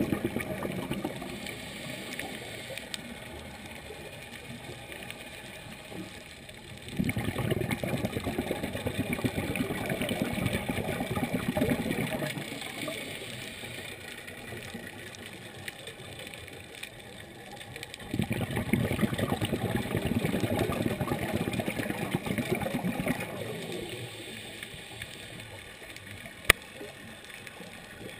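A scuba diver's regulator breathing underwater: two long rushes of exhaled bubbles about eleven seconds apart, with quieter stretches between them. A single sharp click near the end.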